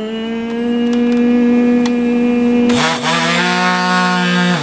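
Operation board game buzzer sounding with a steady electric buzz: the tweezers have touched the metal edge of a cavity, lighting the patient's red nose. About three seconds in there is a short rattle, and the buzz continues at a slightly lower pitch.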